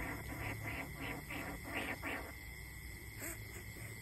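A quick run of about eight short calls, roughly three to four a second, which stops a little past halfway, over a steady high drone of crickets.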